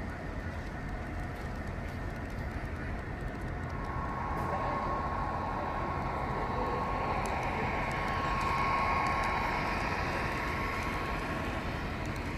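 HO scale model freight train running on the layout track: a steady rumble of wheels on rail, with a whine that comes in about four seconds in, grows louder past the middle and eases off near the end.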